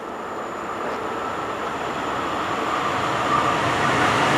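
Red DB electric locomotive approaching on the line, its rolling noise growing steadily louder as it nears.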